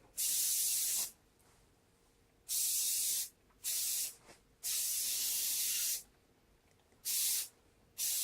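Aerosol can of cheap hairspray sprayed onto hair in six separate hissing bursts, from about half a second to well over a second each, with short pauses between them.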